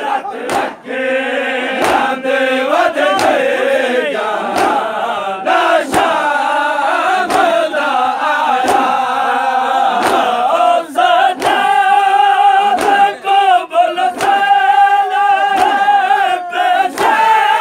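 A group of male Shia mourners chanting a noha together in unison while beating their chests (matam). The open-handed chest slaps land in a steady beat of about three every two seconds, in time with the chant.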